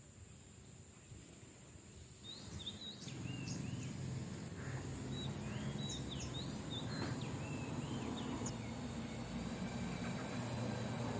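Birds chirping in short, repeated calls that jump in pitch, from about two seconds in, over a steady high-pitched insect whine. A low steady hum rises beneath them from about three seconds in.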